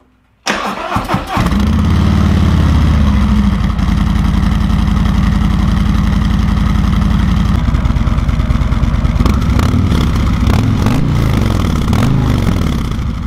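A 2019 Harley-Davidson Street Glide's Milwaukee-Eight 107 V-twin, through its stock exhaust, cranks on the starter and catches about a second and a half in, then runs loud and steady at idle. In the last few seconds the engine speed rises and falls a few times as the throttle is blipped.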